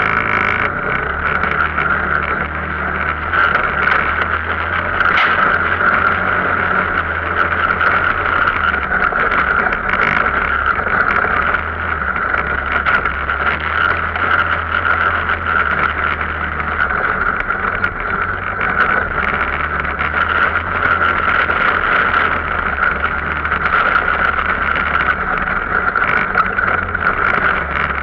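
Arctic Cat off-road vehicle's engine running steadily under way, with a constant drone and a low hum that hold without a break or a change in speed.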